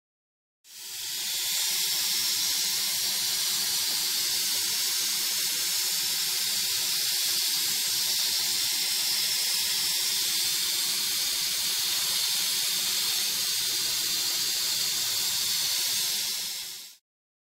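A steady hiss like escaping steam, fading in about a second in and stopping shortly before the end.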